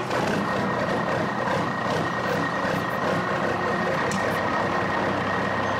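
A truck engine running steadily, with a steady high tone held over it.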